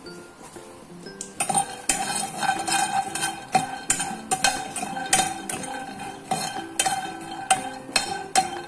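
A spatula stirring raw peanuts dry-roasting in a nonstick frying pan, starting about a second and a half in: repeated scrapes and clicks as the nuts rattle against the pan. Guitar background music plays throughout.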